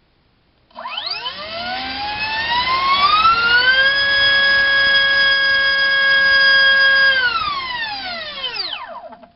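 Turnigy SK3 2839 2700 kV brushless motor spinning a 4045 three-bladed bullnose prop on a four-cell battery during a thrust test. It spools up over about three seconds to a steady high whine with prop buzz, holds there for about three seconds, then winds down and stops.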